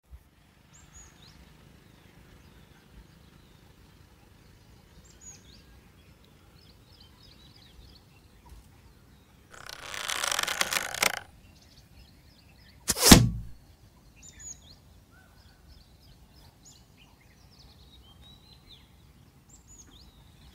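Small birds chirping faintly throughout. About ten seconds in comes a rushing whoosh of a second and a half, then about three seconds later the single loudest sound, a sharp thunk: an arrow loosed from a bow and striking its target.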